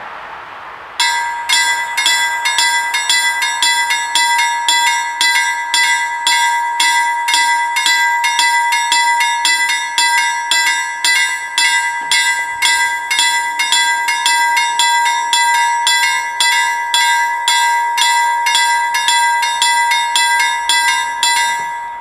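A Swedish level crossing's two electric warning bells ringing in rapid, evenly spaced strokes: the warning for an approaching train. They start about a second in and stop just before the end, once the barriers are down.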